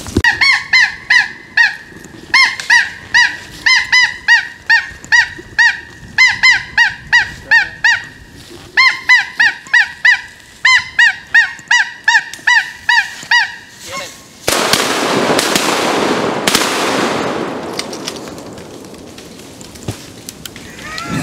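Goose honking: one high honk after another, about three a second, in several runs with short breaks. About fourteen seconds in the honking stops and a loud rushing noise takes over, fading away over several seconds.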